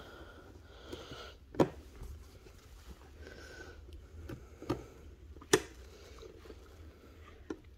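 Several sharp metallic clicks from the throttle shaft and linkage of a new Keihin FCR39 carburettor rack being worked by hand, the loudest about a second and a half in and again around five seconds in.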